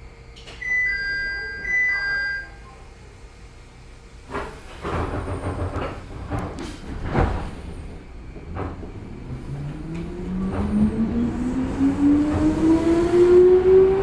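Inside an electric train: a two-note chime sounds twice, then about four seconds in the car starts rumbling and clattering as it gets under way, with a few sharp knocks. From about nine seconds the electric traction motors give a whine that rises steadily in pitch as the train accelerates.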